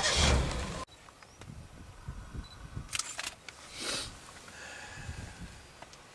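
Camcorder handling noise: a loud rustle and rumble on the microphone for under a second as the camera is swung, which cuts off abruptly. Faint outdoor background follows, with a couple of soft swells of noise.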